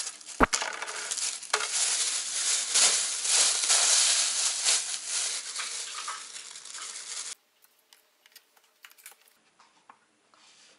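Thin plastic bag rustling and crinkling as dried seaweed is crushed inside it, with a sharp click about half a second in. About seven seconds in the rustling cuts off abruptly, leaving only a few faint clicks.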